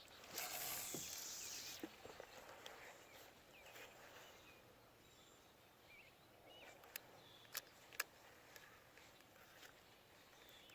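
Quiet outdoor ambience with faint, scattered bird chirps. There is a brief rush of noise in the first two seconds and a few sharp clicks near the middle.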